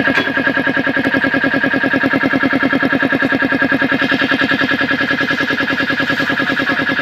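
Swan 1/2 hp piston air compressor, driven by a Jiayu electric motor, running steadily with a rapid, even pumping pulse as it builds pressure in its air tank.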